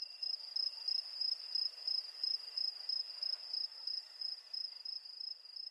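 A cricket chirping: one high trill that pulses in an even rhythm about three times a second.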